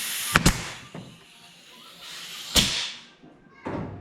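Pneumatic 18-gauge brad nailer firing twice, about two seconds apart, driving brads into a wooden beehive frame. Each shot is a sharp snap, and a short hiss of air fades after the second.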